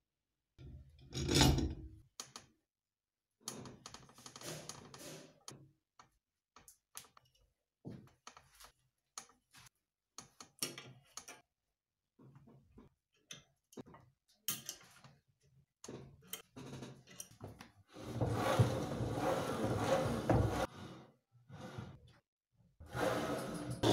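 Workshop handling sounds in short separate bursts: steel parts knocked and set down on a wooden bench, an adjustable wrench turning nuts, and wooden pieces knocked together. About three-quarters of the way through there is a longer stretch of steady scraping noise.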